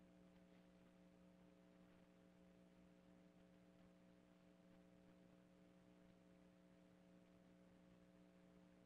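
Near silence with a faint, steady hum of a few even tones.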